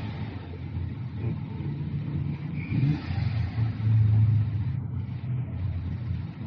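Diesel engine running steadily, a continuous low drone with small shifts in speed.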